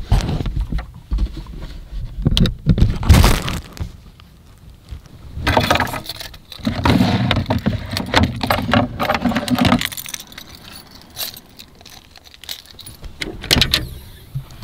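Clattering, rustling handling noise of clothes, bedding and gear being moved about in a pickup's truck-bed camper, with jangling like keys. A low, steady hum sounds for about three seconds in the middle.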